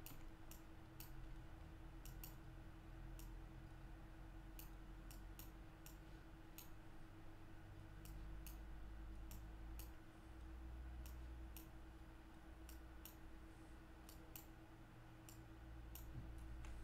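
Faint, scattered clicks of a computer mouse and keyboard, one or two a second at irregular spacing, over a low steady hum.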